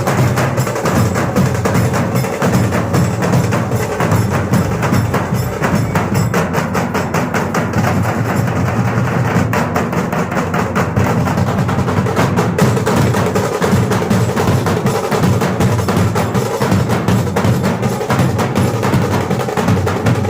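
Loud dance music with fast, driving percussion.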